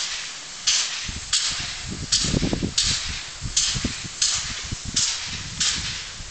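Pt47 steam locomotive's exhaust puffing in a slow, regular beat, about one sharp hissing chuff every three-quarters of a second, each fading before the next.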